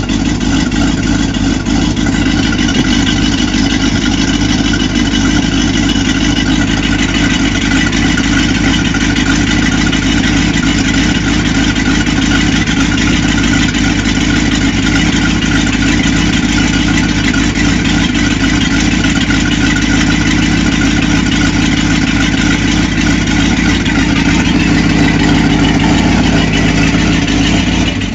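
Boat's V8 sterndrive engine idling steadily on the trailer, its exhaust coming out of twin through-transom pipes with cooling water. The engine is being test-run after winter lay-up, fed by a hose, and grows slightly louder near the end.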